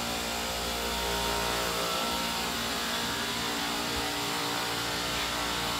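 Refrigeration rack's scroll compressors running: a steady machine-room drone with a constant hum.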